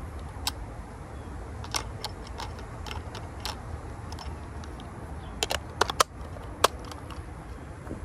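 Irregular sharp plastic-and-metal clicks from hands loading and working an AR-15-style BB air gun magazine, bunched together a little past halfway.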